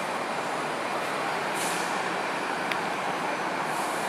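Steady street traffic noise of buses and cars, with two short high-pitched hisses, one about a second and a half in and one near the end.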